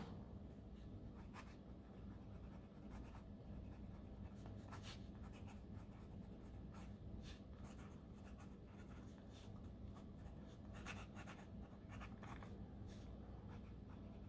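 Faint scratching of a fountain pen nib writing on notebook paper, in short irregular strokes. The page lies over a textured fabric cover, so the nib runs over bumps, which fountain pens do not like.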